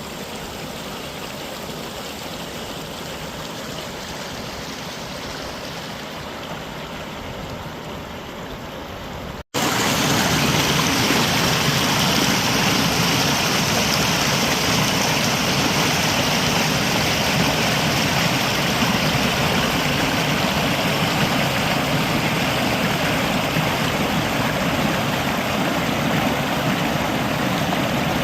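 Stream water rushing steadily over rocks. About nine seconds in it cuts abruptly to a louder, fuller rush of water.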